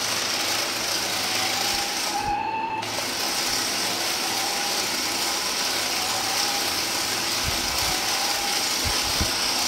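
Toy RC stunt car's small electric gear motors whirring and rattling as it spins and drifts. The whir cuts out briefly about two and a half seconds in, and a few low thuds come near the end.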